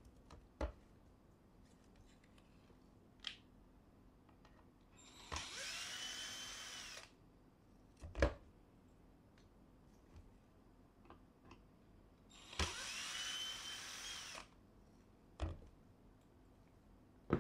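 Small cordless electric screwdriver run twice on the plastic toner cartridge's screws, each run about two seconds long: a high whine that rises as the motor spins up, then holds steady. Sharp plastic clacks come in between as the cartridge is handled, the loudest about eight seconds in.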